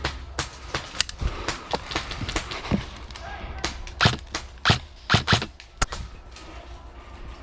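Airsoft guns firing: a string of sharp, irregularly spaced snaps, some near and loud, the loudest few coming between about four and six seconds in.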